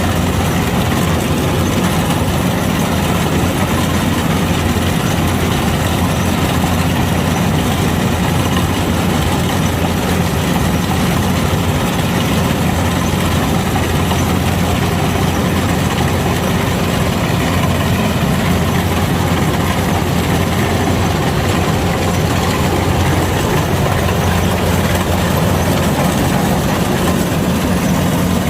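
Kubota DC-105X combine harvester's diesel engine and machinery running steadily, a constant low drone under an even mechanical rush.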